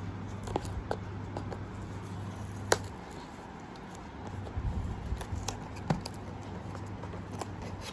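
Fingers handling a small cardboard box and picking at its seal sticker: scattered light taps, scratches and clicks, with a sharper tap about two and a half seconds in and another near six seconds, over a steady low hum.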